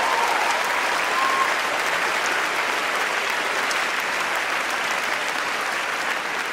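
Theatre audience applauding steadily, the clapping easing off near the end.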